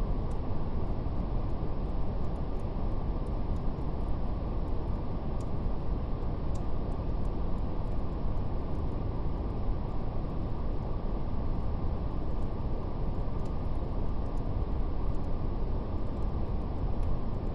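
Steady brown noise: a deep, even rush weighted toward the low end. Faint fire crackle runs through it as small, quick, irregular ticks.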